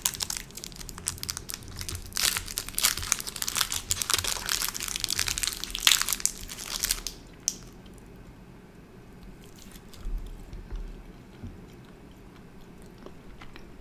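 Candy wrapper crinkling and rustling as a lemon taffy candy is unwrapped by hand, for about seven seconds. After that it is much quieter, with only a few faint clicks and soft taps.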